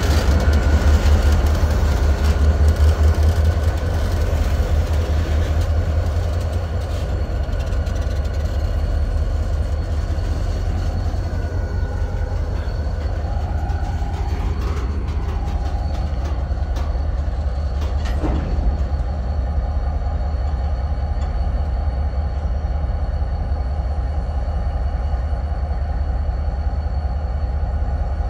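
Utah Railway diesel freight train passing close by. The locomotives' engine rumble is loudest in the first few seconds, then gives way to the steady rolling rumble of covered hopper cars on the rails, with faint high squealing tones and a single clank about 18 seconds in.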